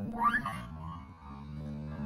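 Background music with held low notes, and a brief rising squeal near the start.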